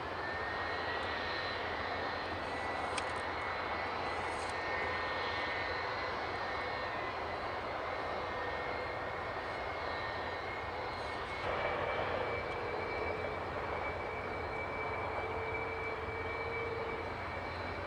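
Jet airliner engine running steadily at low power, an even rush with a thin high whine. About two thirds in the sound grows a little louder and a fainter tone rises slightly in pitch.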